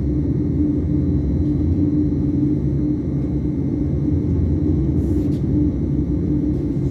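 Gornergrat Railway electric rack train running downhill, heard from inside the carriage: a steady rumble with a constant hum, and a faint tick about five seconds in.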